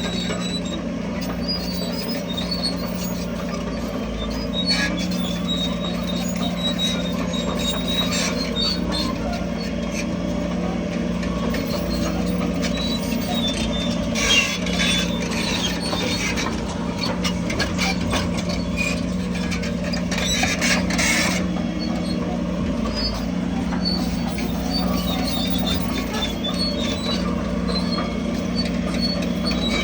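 Heavy diesel construction machinery running steadily, with scattered high metallic squeaks and clicks over the engine and a few brief louder rattles around the middle.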